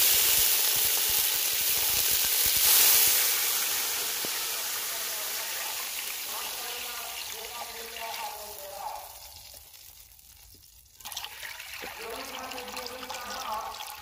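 Water poured into hot oil in a metal karahi, hissing and sizzling loudly as steam bursts up, the hiss fading slowly over several seconds. After a brief lull about ten seconds in, a stream of water pours into the pan again, splashing with a ringing tone.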